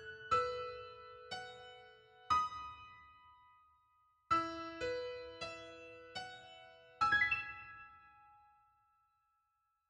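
Solo piano playing the slow closing bars of a piece: a few single notes, a brief pause, a short run of notes, then a final chord spread quickly about seven seconds in that rings on and fades out.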